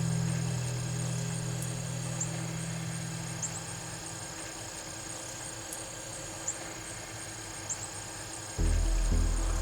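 Low background music fades out over the first few seconds, leaving faint, steady insect chirring in the field. A deep bass music bed starts suddenly near the end.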